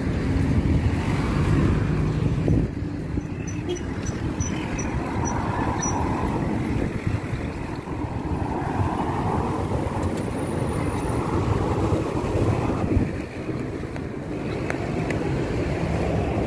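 Street traffic: cars running past, a continuous low rumble of engines and tyres. A short run of faint high beeps sounds about four seconds in.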